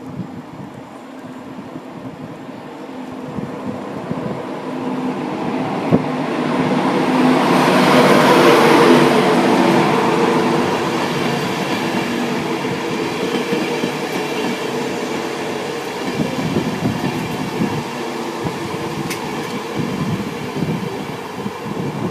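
A train approaching the station, growing louder to a peak about eight seconds in, then running on steadily with a constant low engine note.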